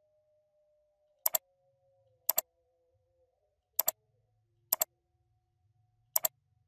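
Computer mouse clicking five times, each click a quick double tick of press and release, over a faint low hum.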